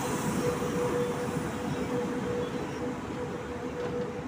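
Electric-hauled passenger train passing close by, the locomotive's end giving way to its coaches: a dense rumble of wheels on track with a steady hum over it, slowly fading.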